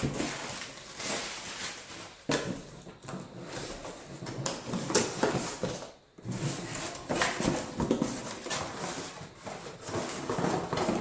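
Rustling of packaging with occasional knocks as metal drill-stand parts are handled and unpacked, in irregular swells with a sharp knock about two seconds in.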